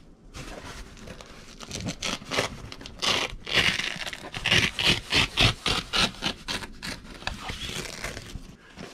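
Velcro strips being pulled apart along a camper trailer's canvas door: a series of short rasping rips mixed with rustling canvas, busiest in the middle.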